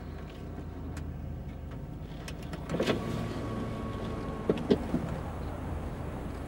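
Car engine running, heard from inside the car as a steady low hum, with a few short knocks a little before halfway and two or three sharp clicks later on.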